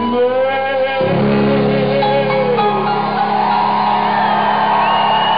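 Live rock band with singing: a sung line trails off about a second in as the band moves into a long held chord, with vocals sliding over it.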